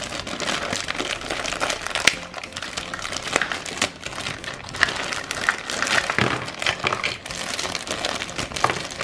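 Fingers pressing and rubbing kinetic sand into a plastic dinosaur mold: a continuous close rustle with many small clicks and crackles.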